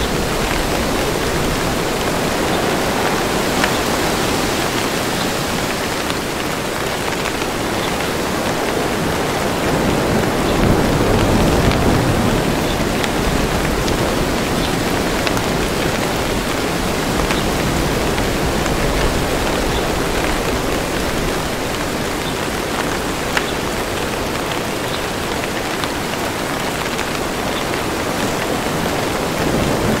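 Steady rain, with single drops ticking through it, and a low rumble of distant thunder swelling about a third of the way in.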